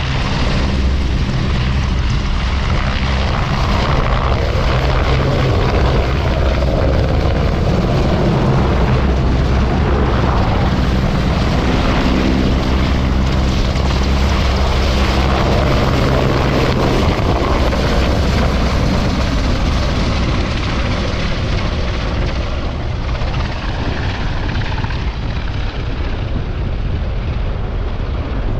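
Engine drone of a low-flying military aircraft, steady for most of the time and fading near the end, mixed with strong wind buffeting the microphone.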